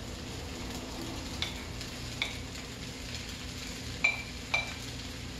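Fried rice and shrimp sizzling in a frying pan, with four sharp clicks of a spatula knocking against a plate as the shrimp is scraped in, the last two loudest, near the end.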